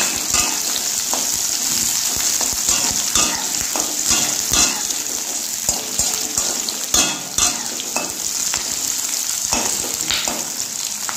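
Onion and capsicum sizzling in hot oil in a kadai as they are lightly stir-fried, with a steady high hiss. A metal spatula scrapes and clicks against the pan now and then as it turns the vegetables.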